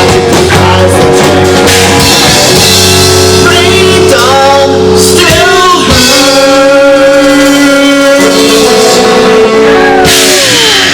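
Live rock band of electric guitar, bass guitar and drums playing loud, with singing and held chords and a few sliding notes.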